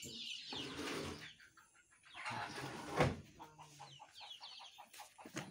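Chickens clucking in short quick pulses, with a thump about three seconds in.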